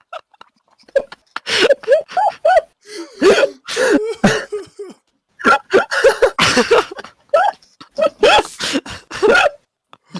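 People laughing hysterically in a long run of short, wheezing, cough-like bursts with gasps between them.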